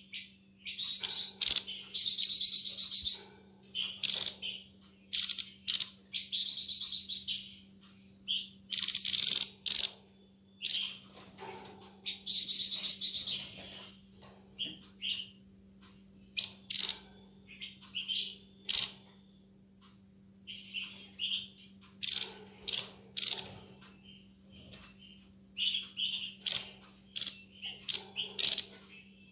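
Tepus dada putih, the 'sniper bird', singing: repeated bursts of very rapid, sharp, high notes, each burst about a second long, giving way to shorter separate chirps in the second half.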